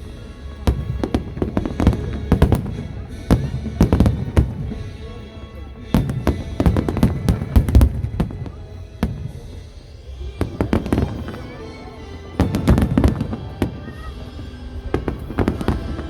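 Aerial fireworks going off in rapid volleys of sharp bangs and crackles, in clusters every two to three seconds.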